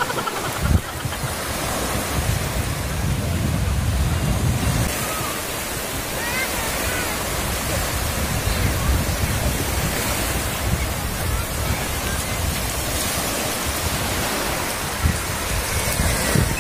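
Small waves breaking and washing up on a sandy shore, a steady rushing surf, with wind buffeting the microphone underneath.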